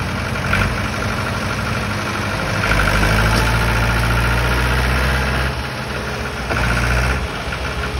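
Farm tractor's diesel engine running under load in deep mud. About three seconds in it revs up and pulls harder for a few seconds, then eases, and it pulls hard again briefly near the end.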